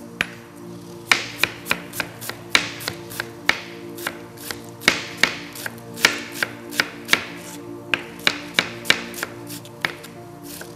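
Chef's knife finely chopping an onion on a cutting board: a quick, uneven run of sharp knocks of the blade on the board, about two to three a second, starting with a single knock and then running on from about a second in.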